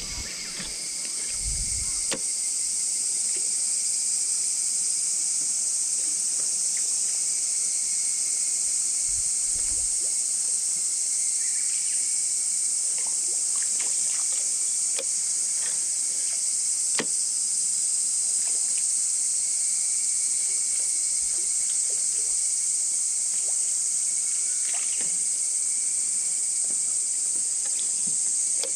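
Steady, high-pitched chorus of insects singing without a break, with a few faint clicks and taps scattered through it.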